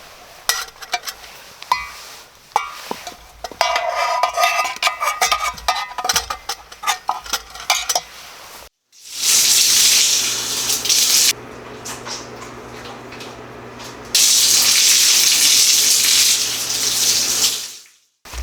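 Cookware and utensils clinking and clattering. Then, after a cut, a loud steady sizzle of food frying in a pan, which drops away for a few seconds and comes back.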